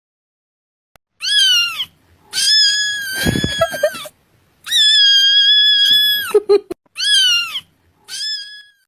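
A cat meowing five times after a second of silence: a short falling meow, two long drawn-out meows, then two shorter ones.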